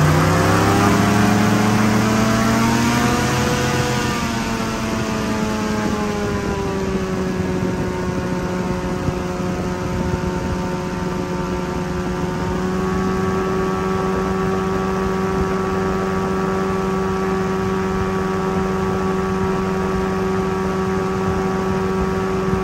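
Boat engine running under way across calm water. Its pitch rises and falls over the first several seconds, then holds steady, growing a little brighter about halfway through.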